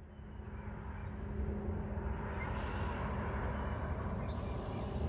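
Outdoor ambience with a low vehicle rumble and a steady hum, getting louder over the first second and a half and then holding steady.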